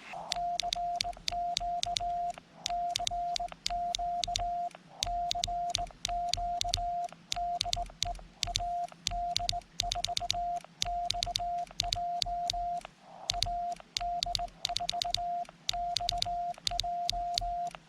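Morse code (CW) from a ham radio transceiver: a single steady beep keyed on and off in dots and dashes, with a click at each key-down and key-up.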